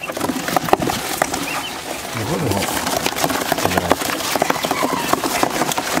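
Cardboard box rustling and scraping with a dense run of small clicks and scratches, as a hand gropes inside it among live quail to catch one.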